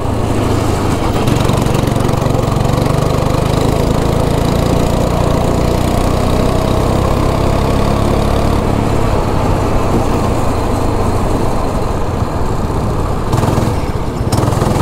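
Go-kart engine running hard and steady, heard from the driver's seat as the kart laps a wet track; the engine eases briefly about a second before the end, then picks up again.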